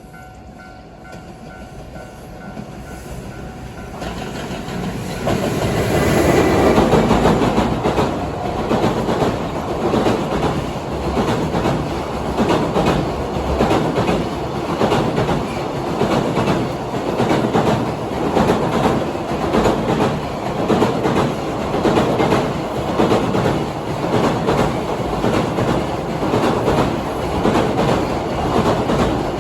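A train approaches over the first few seconds and then passes close by at length. Its wheels click over the rail joints in a steady, repeating rhythm.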